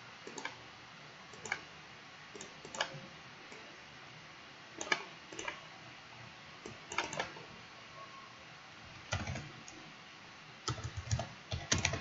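Scattered soft clicks of a computer mouse and keyboard, with a quick run of keystrokes near the end.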